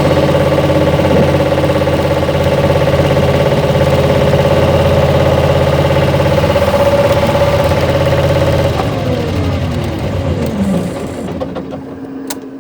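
Bobcat loader's engine running steadily at high revs, then winding down in pitch about nine seconds in and settling to a quieter, lower steady hum. A couple of sharp clicks near the end.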